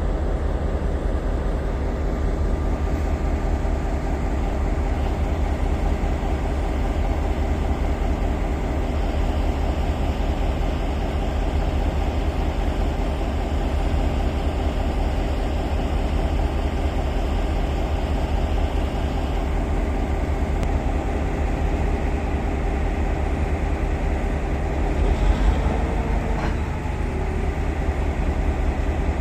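Class 5E1 electric locomotives standing at the train with their blowers running: a steady hum with a constant whine in it. Near the end there is a brief louder swell with a short wavering squeal.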